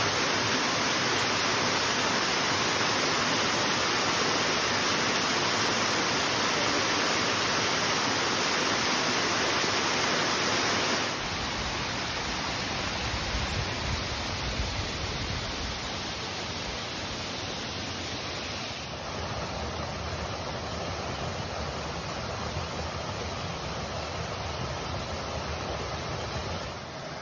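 Waterfall rushing: a steady, loud hiss of falling water. About eleven seconds in it drops abruptly to a quieter, lower rushing, and it steps down a little again later.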